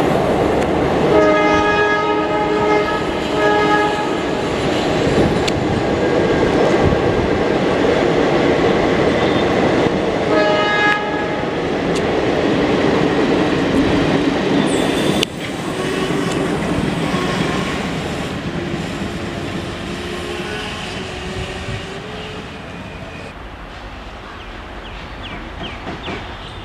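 Indian Railways EMD diesel-hauled train passing at speed, wheels clattering over the rail joints, its multi-tone horn sounded in two blasts about a second in and a shorter one about ten seconds in. The level drops abruptly about fifteen seconds in and then fades away.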